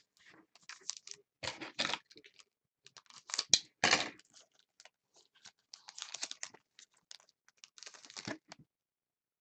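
Foil trading-card pack crinkling in the hands and being torn open, a series of short crackling rips, loudest about three and a half to four seconds in.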